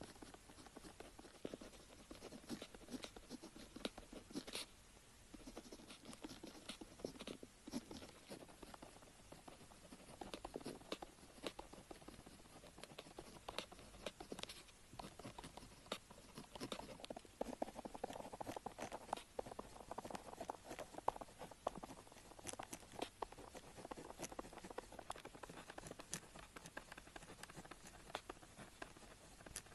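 Pen tip writing on paper, close up: a faint, irregular stream of quick scratches and small ticks.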